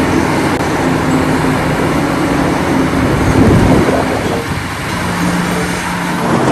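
Loud, steady noise of road vehicles in traffic, with a low engine hum that drops in pitch about five seconds in.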